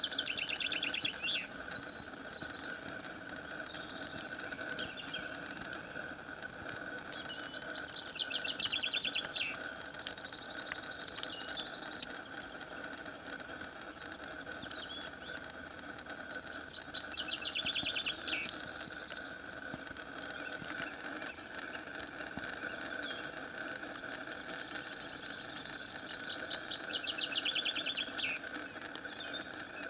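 High bird calls in repeated phrases, four times about nine seconds apart, each a fast trill joined to a held high note, over a steady background hum.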